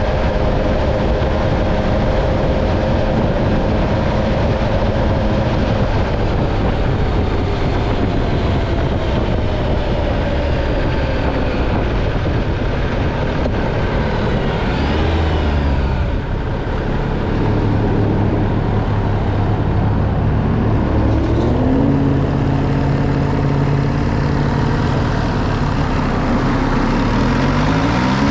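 MV Agusta Stradale 800's three-cylinder engine under way on a ride, heard over a steady rush of wind noise. The engine holds a steady note, slowly drops in pitch, then picks up again in steps and revs up sharply near the end.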